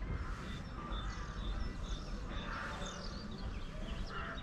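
Birds calling: short high chirps and falling whistles, with two harsher calls, one a little past halfway and one near the end, over a steady low rumble.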